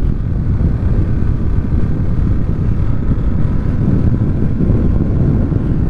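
Steady wind rush on the camera microphone of a moving motorcycle, with the engine running evenly underneath.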